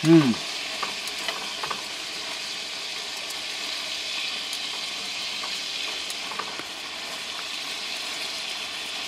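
Venison tenderloin sizzling steadily in a hot skillet, with a few light clicks of metal tongs against the pan in the first two seconds. A brief voice sound comes right at the start.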